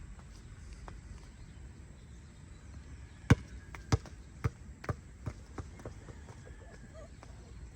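A dropped object bouncing to rest: six knocks, each quieter and closer together than the last, over about two and a half seconds.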